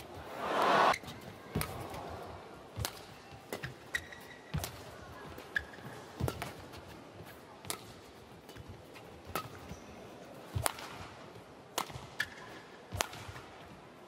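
Badminton rally: rackets strike the feather shuttlecock with sharp cracks, about one a second, and court shoes give a few short squeaks. A brief loud rush of crowd noise comes about half a second to a second in.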